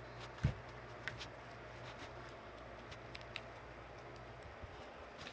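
Slime being squeezed and pulled by hand, with faint sticky clicks and one low thump about half a second in, over a steady low hum.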